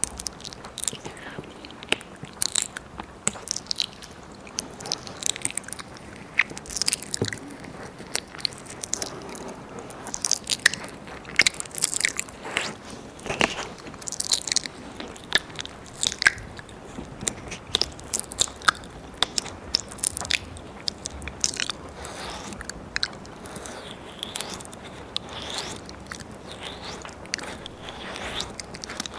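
Wet mouth sounds close on a binaural ear microphone: tongue licks, lip smacks and small sucking clicks, irregular and several a second, as in ASMR ear licking and ear eating.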